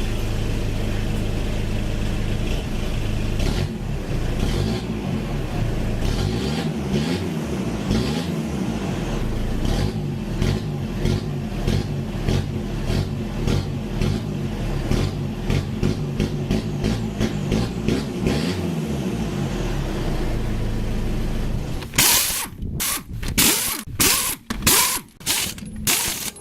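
Turbocharged diesel ute engine running through a muffler-less side-exit exhaust: it idles, is revved up and down over and over, then settles back to idle. About 22 seconds in the engine sound stops and a string of short, sharp hissing noises follows.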